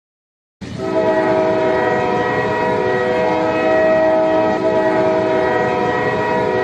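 Ice hockey goal horn sounding one long, steady blast, a chord of several tones held together, starting about half a second in.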